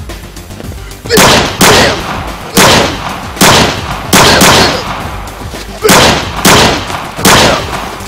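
Pistol shots, about nine, fired in irregular bursts, some in pairs about half a second apart. Each is a loud sharp crack with a short fading tail.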